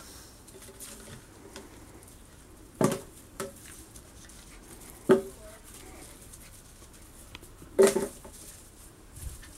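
Empty plastic PET bottle on a rope crackling and knocking as a puppy bites and tugs at it, in three loud crackles a few seconds apart.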